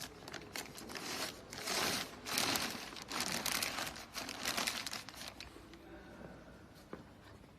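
Crinkling, rustling noise of handled material in a run of bursts, loudest in the middle few seconds and dying down near the end.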